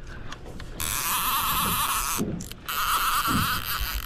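Fishing reel whirring with a fast ratcheting buzz. It starts about a second in, stops briefly around the middle, then runs on.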